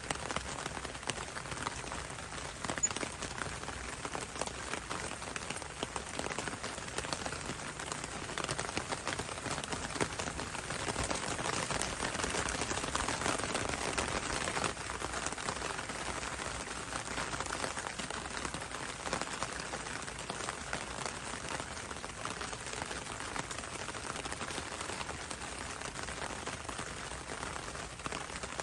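Steady rain falling on leaves: a dense patter of drops that swells slightly about halfway through.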